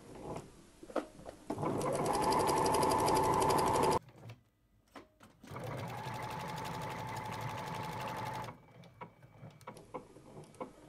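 Janome Secio 8200 computerized sewing machine fitted with a bead foot, stitching over a string of beads. It runs at speed twice for about two to three seconds each time, with a fast even needle rhythm and a steady motor whine, and each run cuts off suddenly. The second run is quieter. Small clicks come between the runs.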